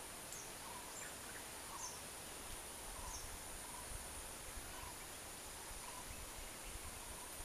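Forest ambience: a steady high insect drone with short bird chirps every second or so, and a faint low rumble from about three seconds in.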